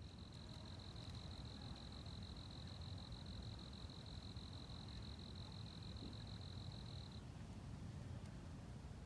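An insect trilling: a steady, high-pitched, evenly pulsing trill that stops about seven seconds in, over the low rush of the river.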